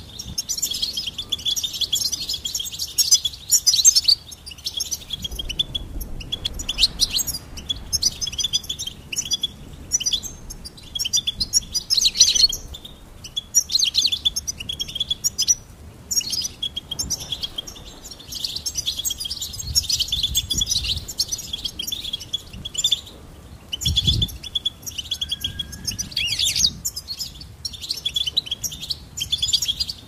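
European goldfinch singing: a long run of rapid, high twittering phrases broken by short pauses every few seconds.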